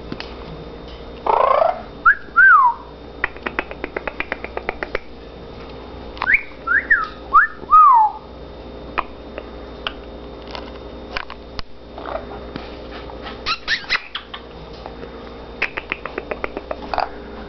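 Orange-winged amazon parrot whistling: short whistles that rise and fall, in pairs and threes, with a brief harsh call near the start. Between the whistles come quick runs of clicks, about ten a second.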